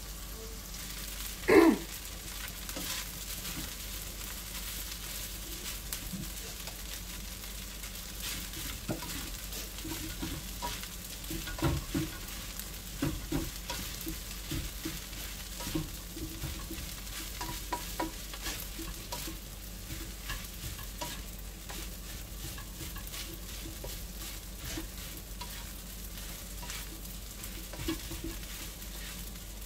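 Rice and vegetables frying in a non-stick wok with a steady sizzle, a spatula scraping and knocking against the pan as the rice is stirred and tossed. About a second and a half in, a short, loud sound falls in pitch.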